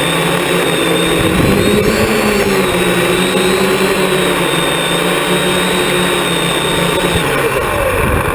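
Hexacopter's six electric motors and propellers whining steadily, heard from a camera mounted on the craft, the pitch wavering slightly with throttle. Near the end the whine drops in pitch as the motors slow for landing.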